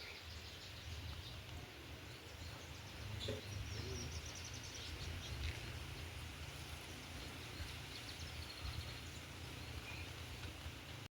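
Faint outdoor ambience with birds chirping now and then over a steady low rumble.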